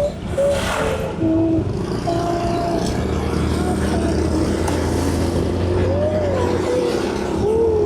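Steady low rumble of a road vehicle heard from inside while driving: engine and road noise, with a few short pitched sounds over it.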